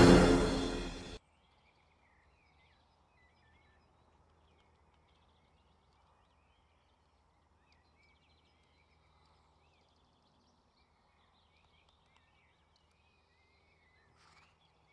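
Orchestral freestyle music fading out and stopping about a second in. Then near silence with faint, scattered birdsong.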